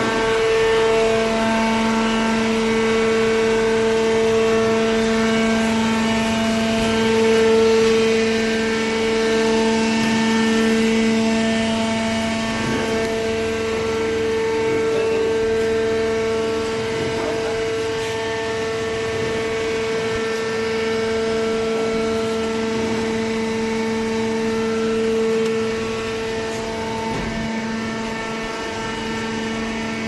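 Waste paper baler's electric motor and hydraulic pump running with a steady, loud pitched hum-whine.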